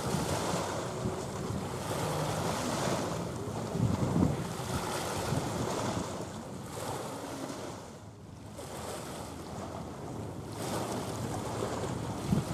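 Wind blowing across the microphone, with small waves washing against a rocky shore. There are louder buffeting gusts about four seconds in and near the end, and a lull at around eight seconds.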